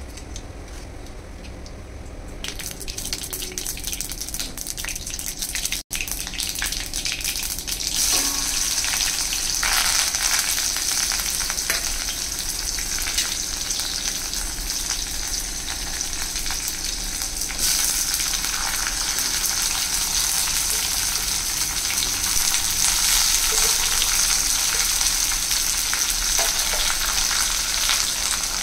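Onion, green chilli, then small brinjals and drumstick pieces frying in hot oil in a kadai: a steady high sizzle that gets louder in steps, about eight seconds in and again near eighteen seconds in. It cuts out briefly near six seconds.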